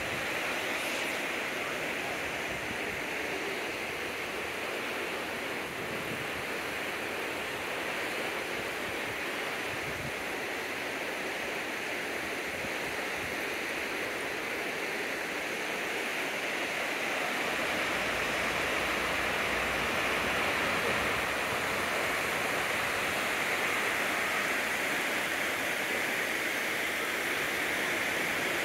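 Water rushing steadily over a low river dam, a constant roar of falling water that grows a little louder in the second half.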